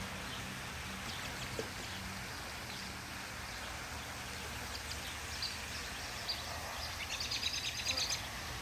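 A low hum of Italian honeybees flying around the opened hive, fading after a couple of seconds, under an outdoor background in which small birds chirp now and then. About seven seconds in, a bird gives a quick trill of rapidly repeated high notes, the loudest sound.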